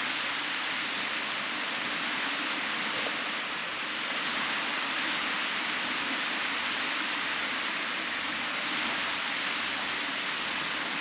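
Steady hiss of small surf washing up on a flat sandy beach, even and unbroken.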